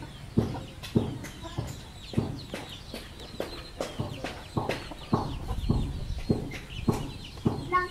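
Chickens clucking while foraging: short, abrupt clucks about twice a second, with thin high chick peeps over them.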